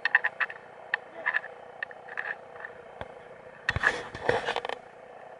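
A spinning fishing reel clicking in short, irregular runs while a big snapper pulls against the bent rod. About four seconds in there is a louder rush of noise lasting about a second.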